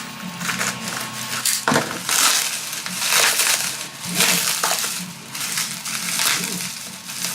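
Packaging being handled as a boxed device is unpacked: repeated rustling and crinkling, in swells of about a second each.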